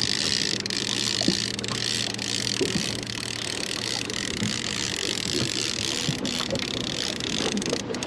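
A boat's motor running with a low, steady hum, under an even hiss of wind and water.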